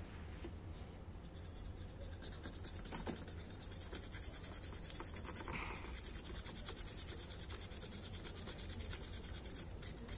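Toothbrush bristles scrubbing an induction cooker's circuit board clean, a steady scratchy rubbing that runs on throughout.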